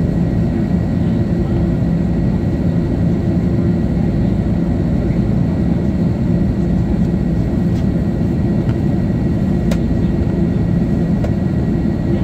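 Steady cabin noise of an Airbus A330 in flight, heard inside the cabin at a window seat: an even low rumble of engines and rushing air with a steady low hum running through it.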